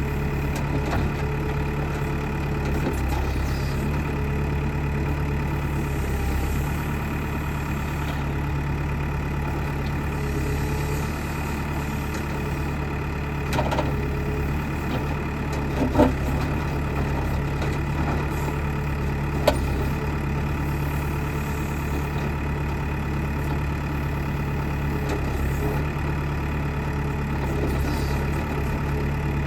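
Backhoe loader's diesel engine running steadily, with a few short sharp knocks over it, the loudest about halfway through.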